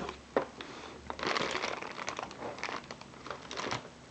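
Packaging crinkling and rustling in irregular bursts as items are taken out of a box, with a sharp knock about half a second in.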